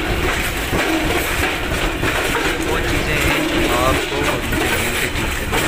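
Freight train's covered goods wagons rolling slowly past close by: a steady deep rumble with metallic clanking and rattling from the wheels and bogies on the rails.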